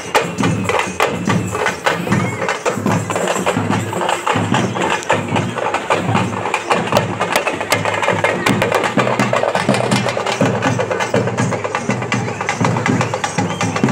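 Procession drums playing a loud, fast, steady rhythm of sharp strikes over a pulsing low beat.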